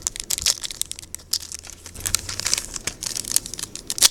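Foil booster-pack wrappers and trading cards being handled: an irregular run of quick crinkles and rustles.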